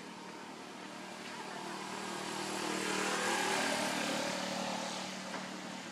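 A motor vehicle passing by: a steady engine drone that swells to its loudest about three to four seconds in, then fades.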